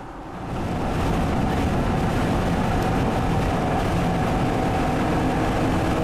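Engine and road drone of a vehicle driving at speed on a highway, heard from inside the cab. It swells about half a second in, then holds steady.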